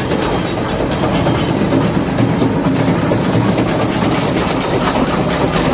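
Farm machinery engine running steadily under a fast, even mechanical clatter.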